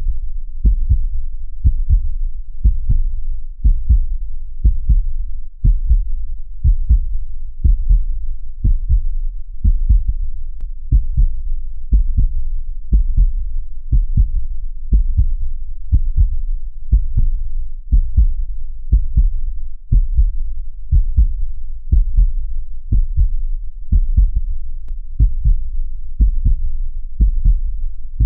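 Heartbeat: a steady, regular rhythm of low lub-dub thumps.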